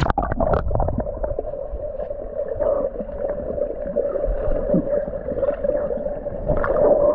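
Swimming pool water heard with the microphone underwater: a muffled, steady hum with gurgling and knocks, all high sounds cut off. The muffling begins suddenly right at the start, as the microphone goes under.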